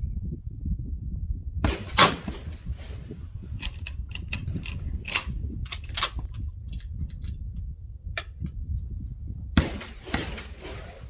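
A .410 shotgun fired once, a sharp bang with a ringing tail about two seconds in, followed by a run of sharp clicks and knocks, then a second, quieter bang near the end, over a steady low rumble.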